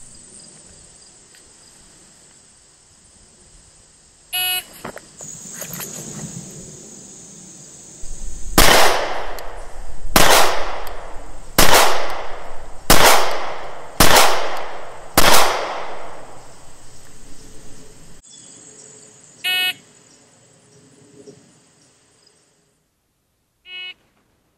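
A short electronic start beep, then about four seconds later six .40 S&W pistol shots from a Smith & Wesson SW99, spaced roughly a second and a quarter apart, each with a short ringing tail. Insects drone high and steady underneath, and two more short beeps sound after the shooting.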